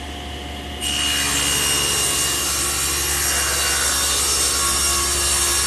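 Table saw ripping an oak panel blank to width: the saw runs free at first, then about a second in the blade bites into the board and a loud, steady cutting noise carries on.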